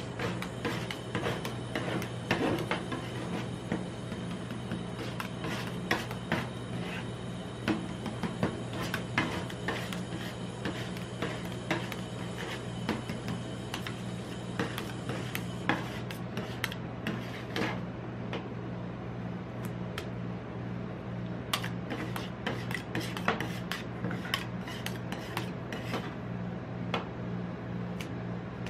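Metal spatulas chopping and scraping a freezing Fanta ice cream mixture on a steel cold plate: irregular sharp taps of the blades striking the plate among scraping strokes, over a steady low hum.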